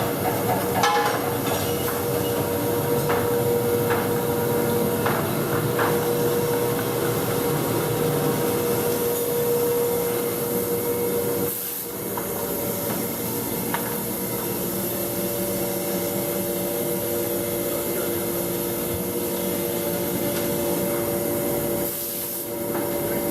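Woodworking shop machinery running steadily with a humming drone, its pitch shifting lower about two-thirds of the way through, under a haze of motor and dust-extraction noise. A few sharp knocks of wood on wood come in the first few seconds.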